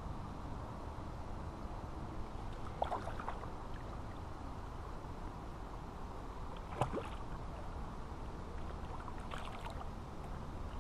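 Steady low rumble of wind on the microphone, with a few short faint splashes from a hooked trout thrashing near the bank, about three seconds in and again around seven seconds.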